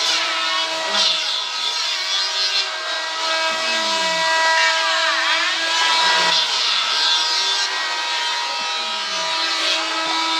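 Power tool running steadily with an even motor hum while it cuts or works wood, with a continuous scraping, sawing noise over the hum.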